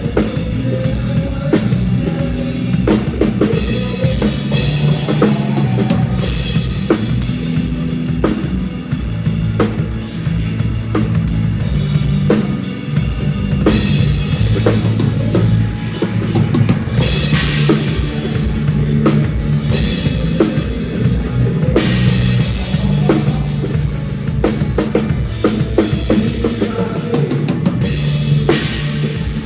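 Instrumental band music led by a drum kit playing a steady beat, with bass drum, snare hits and cymbal crashes over a moving bass line.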